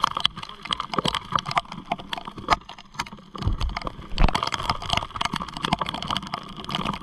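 Irregular clicks and knocks over steady wind and rain noise on an action-camera microphone during a motorcycle ride in the rain, with a heavier low rumble and thud about four seconds in.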